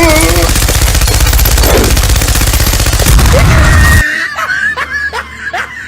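A very loud, harsh burst of rapid-fire crackling noise lasting about four seconds that cuts off suddenly, followed by a run of short rising chirps, about four a second.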